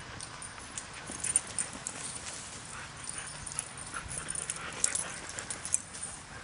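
Siberian huskies playing: short whines from the dogs over the scuffle of paws and scattering sand, with many small sharp ticks throughout.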